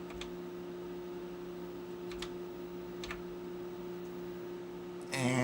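Steady electrical hum with a few faint, isolated clicks spaced about a second apart. A louder pitched sound starts just before the end.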